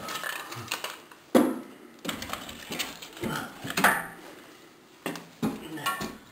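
Split ash firewood being loaded into a wood stove: logs knock and clatter against each other and the firebox in a string of irregular hits, the loudest about a second and a half in and again near four seconds.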